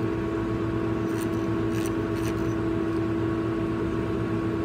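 Steady electrical hum of a Megger FREJA 300 relay test set running, one strong steady tone with fainter higher tones over a low whir, with a few faint clicks.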